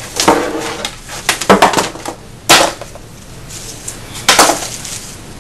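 Clattering and knocking as packs of Morning Glory sparklers are pulled out of a box and handled: a series of sharp knocks and rattles, the loudest about two and a half seconds in and again a little past four seconds.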